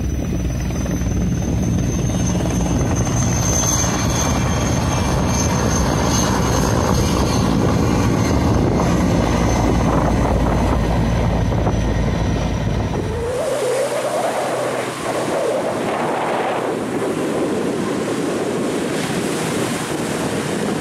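Sikorsky S-64 Skycrane twin-turbine helicopter flying low overhead: a heavy rotor rumble with a high steady turbine whine. About 13 seconds in the sound changes abruptly to a lighter engine drone with wind on the microphone, from a firefighting floatplane passing overhead.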